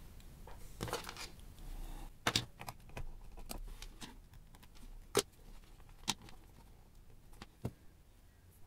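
Small push buttons on a handheld digital oscilloscope being pressed, giving sharp clicks at irregular intervals over faint handling noise. The sharpest clicks fall about two, five and six seconds in.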